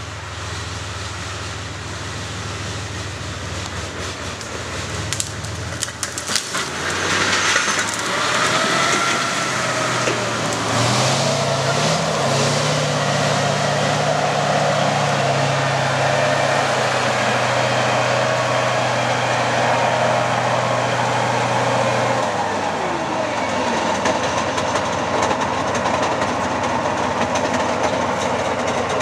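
Heavy tracked recovery vehicle driving off, its diesel engine running hard and its steel tracks clattering. The engine picks up about seven seconds in, holds a steady drone, and eases off about three-quarters of the way through.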